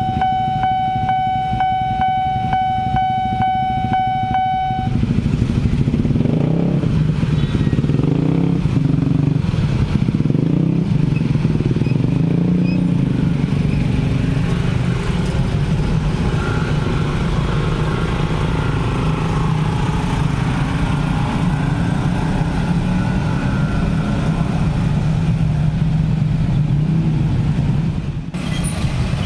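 Railroad crossing warning bell sounding a steady high tone that pulses about three times a second, cutting off about five seconds in. Then many motorcycle engines revving and pulling away together as the waiting traffic crosses the tracks.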